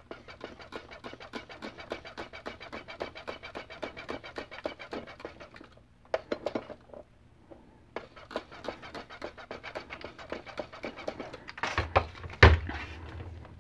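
Hand trigger sprayer squirting alcohol in quick repeated pumps, about seven a second, into the barrel of a micrometer to flush its threads, with a couple of short pauses. A louder knock near the end.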